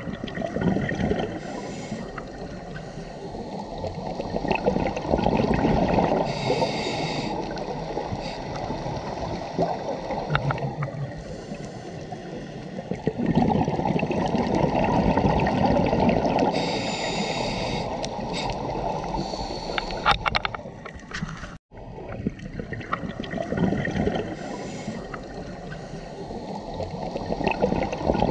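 Scuba diver's open-circuit regulator heard underwater: a bubbling rumble of exhaled bubbles that swells and fades every several seconds, with short hisses of inhaled breath between. The sound cuts out for an instant about two-thirds of the way through.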